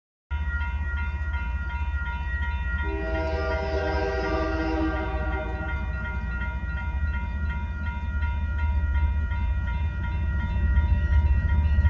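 Railroad crossing bell ringing in steady rapid pulses, while a train's air horn sounds one long chord beginning about three seconds in. A low rumble underneath grows louder near the end as the train approaches.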